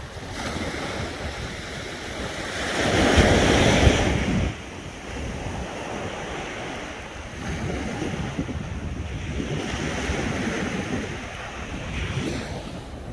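Sea waves washing onto the shore, with wind buffeting the microphone. The loudest surge comes about three to four seconds in, and smaller swells follow every couple of seconds.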